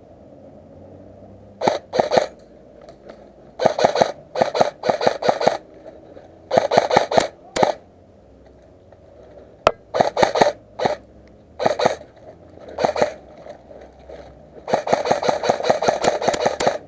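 Airsoft rifle firing on full auto in short bursts of rapid shots, about eight bursts, the longest of about two seconds near the end, with a few single sharp cracks between them.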